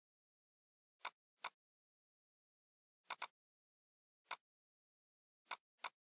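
Seven short computer mouse clicks with dead silence between them, several coming in quick pairs.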